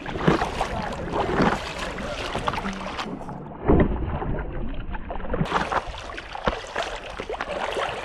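Paddle strokes dipping and splashing in lake water beside an inflatable paddleboard, with wind on the microphone. A little over three seconds in, a louder splash of water rushes up over a water-level action camera.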